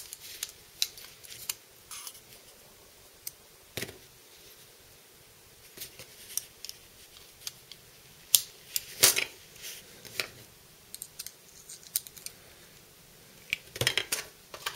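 Small metal parts of a Spyderco Gayle Bradley folding knife clicking and tapping as it is taken apart by hand: scattered, irregular clicks, with a few louder knocks about 4 s and 9 s in and a cluster near the end.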